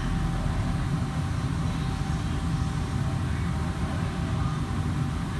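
Steady low rumble with a faint constant hum above it, unchanging throughout.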